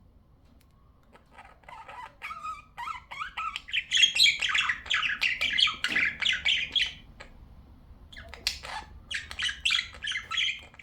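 Budgerigar chattering and squawking in rapid runs of chirps. It grows louder from about a second in, breaks off briefly about two-thirds of the way through, then starts up again.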